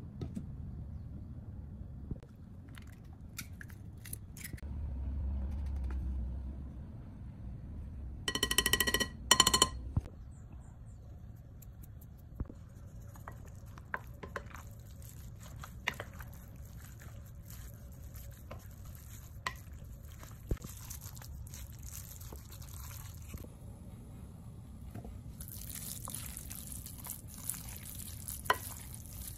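A wooden spoon stirring a wet ground pork and shrimp dumpling filling in a glass bowl, with soft squishing and many small clicks and scrapes against the glass. About nine seconds in, two brief ringing clinks on the glass.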